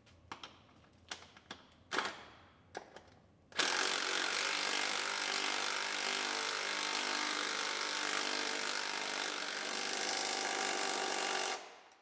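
A few light metal clicks and knocks, then about three and a half seconds in a power tool starts and runs steadily for about eight seconds while tightening bolts, then stops.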